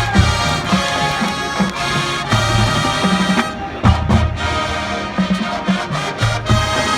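Marching band playing its competition show, with brass sounding held chords over a pulsing low beat.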